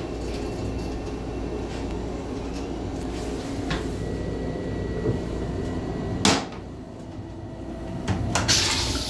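A toilet seat is raised and lands against the wall with one sharp clack about six seconds in. Near the end, clicks from the push-to-flush button are followed by the toilet's flush starting with a loud hiss. Under it all runs the railcar's steady low rumble.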